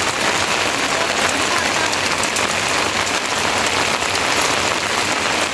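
Steady rain falling in a dense, even hiss.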